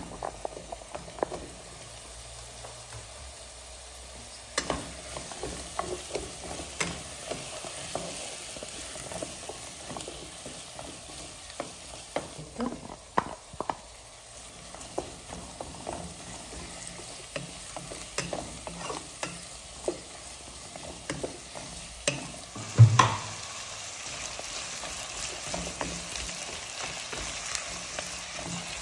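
Chopped vegetables frying in olive oil in a pot, with a steady sizzle, while a wooden spoon stirs and scrapes them. Short clicks and knocks come as carrots, potatoes and chiles are tipped in and the spoon strikes the pot, the loudest a knock a little past three-quarters of the way in.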